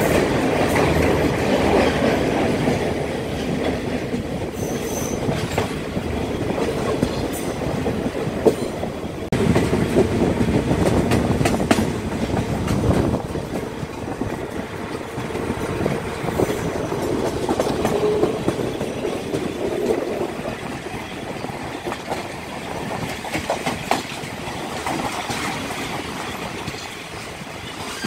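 Moving passenger train heard from an open carriage window: a continuous rumble and rattle of the coaches, with repeated sharp clicks of the wheels over the rails. The level swells and falls, loudest about a third of the way through.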